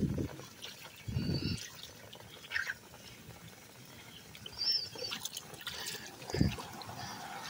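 Water trickling and running into a drain that is being cleared of a clog, with a few short low thumps, the loudest about a second in and near the end.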